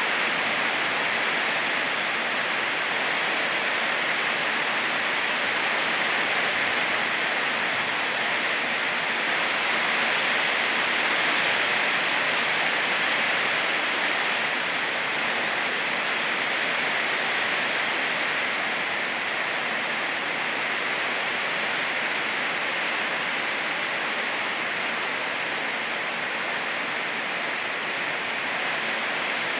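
Rain falling steadily at night, a loud, even hiss.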